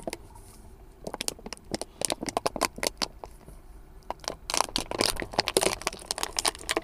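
Plastic bottle of sunflower oil crackling and popping as it is poured into a van's fuel filler, in two irregular flurries of clicks.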